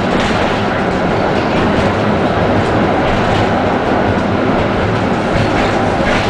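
Tram running along its track, heard from inside the passenger car: a steady rumble of wheels on rails with a few faint clicks.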